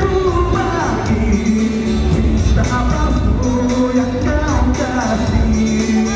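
A man singing live into a handheld microphone over amplified backing music, the melody gliding between held notes.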